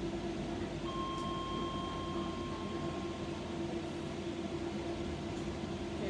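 Steady electrical and ventilation hum inside a DLR train standing at a station. About a second in, a steady high beep-like tone sounds for about two and a half seconds.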